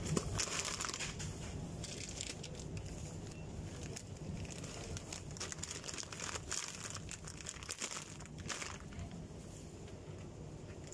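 Plastic snack bags crinkling and rustling in several bursts of a second or so, over a low steady background hum.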